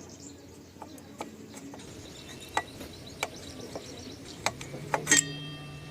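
Scattered metallic clinks and taps of a motorcycle disc brake caliper and tools being handled as the caliper is taken off. A sharper clink about five seconds in rings briefly, and a low hum sets in near the end.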